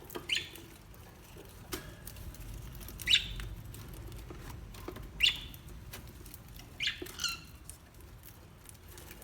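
A small animal giving short, high-pitched squeaking calls, five in all, spaced about one and a half to two seconds apart, with faint light ticks between them.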